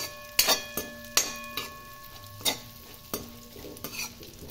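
Chopped almonds and cashews sizzling as they fry in hot ghee in a metal kadhai, with a spatula scraping and clinking against the pan in irregular strokes as they are stirred.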